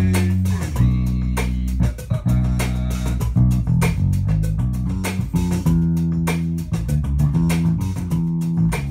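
Passive Fender Jazz Bass played with its tone knob fully rolled off, a moving Motown-style line of round, dull low notes with the attack softened. Short sharp hits sound over it throughout.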